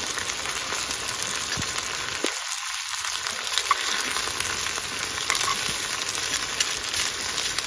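Salmon frying in a very hot pan on a Jetboil gas stove: a steady sizzle with small scattered pops and crackles.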